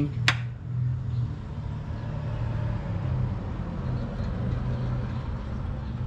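Smoke tester running steadily with a low hum and a faint even hiss, feeding low-pressure smoke into the engine's intake system during a vacuum-leak test. One sharp click just after the start.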